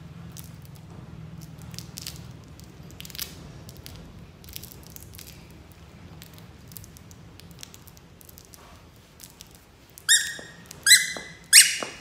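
Baby macaque giving three short, high-pitched squeaks in quick succession near the end, each dropping a little in pitch, the last sliding lower. Before them, faint rustling and light clicks of plush toys being handled.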